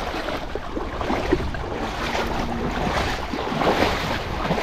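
River water rushing, with wind buffeting the microphone.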